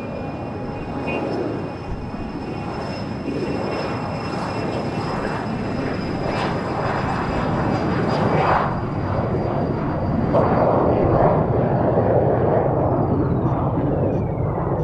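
Beechjet 400A's twin turbofan engines at high power as the jet rolls down the runway: a steady high whine over a rumble, growing louder. Near the end the whine falls in pitch as the jet passes.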